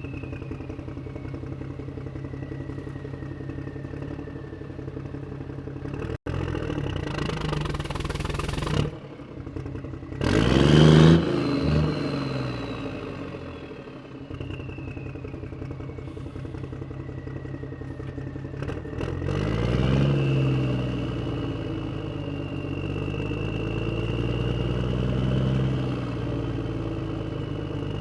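Motorcycle engine running, blipped up and down in sharp revs about ten seconds in, the loudest part, revved again near twenty seconds, then running steadily at a higher pitch. The sound cuts out abruptly for an instant just after six seconds.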